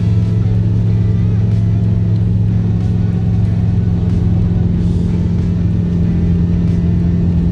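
Light aircraft's piston engine and propeller at full takeoff power during lift-off and climb-out, a loud, steady drone.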